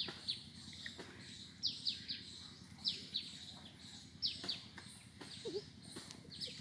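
A bird calling over and over: sharp, high notes that fall quickly in pitch, mostly in quick pairs, repeating every second or so, over a faint steady outdoor hum.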